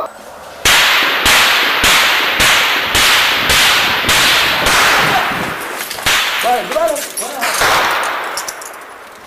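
Gunfire: about a dozen single shots, evenly spaced a little over half a second apart, each trailing a long echo. The firing stops about seven and a half seconds in.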